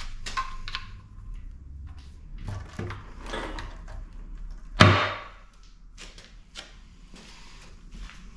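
Metal engine parts and tools being handled during a K20 bottom-end teardown: scattered clicks, knocks and scrapes, with one loud metallic clank about five seconds in.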